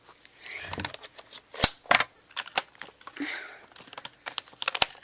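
Clicks and scraping from handling a Crosman Pulse R76 airsoft AK74u as its custom top rail is taken off: a run of sharp clicks mixed with short rubbing noises, the loudest click about a second and a half in.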